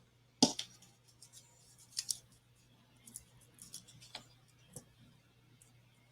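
Paper crafting at close range: a few sharp clicks and crisp paper rustles as small adhesive foam pads are pressed onto a card and their paper backing is peeled off, the loudest click about half a second in. A faint steady low hum lies underneath.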